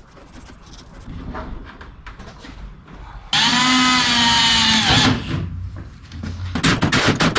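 Electric power drill running at speed with a high whine for about a second and a half, then winding down. About six and a half seconds in, a harsher, noisier grinding starts, typical of drilling into the hood's sheet metal.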